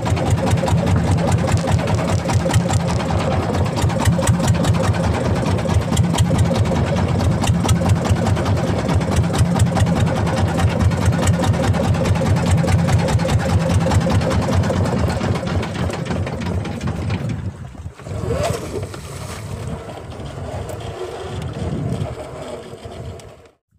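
Motorboat engine running steadily at speed, with a fast even pulse. About 18 seconds in the sound drops and turns quieter and uneven.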